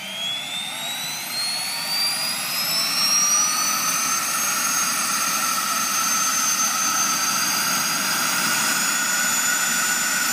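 Mosquito helicopter's small turbine engine starting up: a high whine rising steadily in pitch over the first five or six seconds, then holding steady, over a constant rushing hiss.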